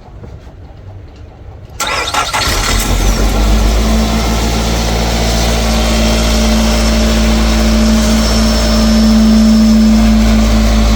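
2013 Nissan Altima engine cranking briefly about two seconds in, catching and settling into a steady idle. It starts now that the short between the cam sensor screw and the ignition coil wire has been repaired.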